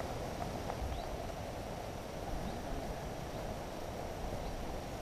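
Steady open-air lakeside ambience: an even background noise with a low rumble and a few faint, short bird chirps.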